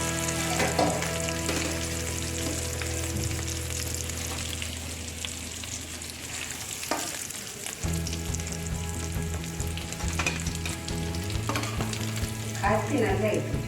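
Quail pieces deep-frying in coconut oil in a pan, a steady sizzle in the late, crisping stage of frying, with a few clicks of a utensil against the pan as the pieces are turned or lifted.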